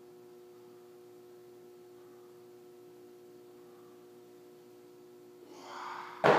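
A faint steady hum, then near the end a short rising rustle and one sharp thud as feet land on the gym floor after coming down from a handstand on Equalizer bars.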